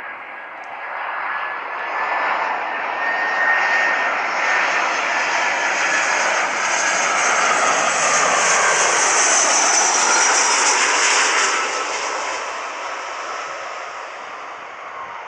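Engines of a fixed-wing aircraft passing the airfield, with a high whine; the sound swells to its loudest about two thirds of the way through and then fades.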